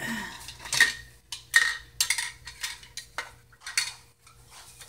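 Clear drinking tumbler being handled, its lid and straw knocking and clinking against it: a string of sharp clinks, the ones about a second and a second and a half in ringing briefly.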